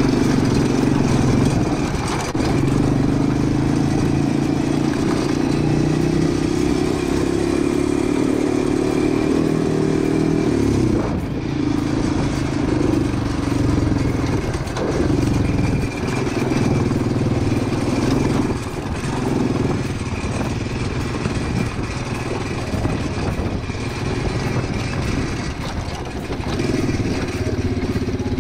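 Quad bike's engine running while under way. Its pitch climbs slowly for about ten seconds, drops sharply, then rises and falls with the throttle.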